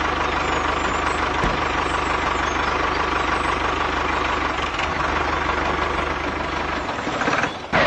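Miniature model tractor's motor running steadily as it drives along with its trailer: a continuous whirr with a low, rapid chugging beneath it, easing slightly near the end.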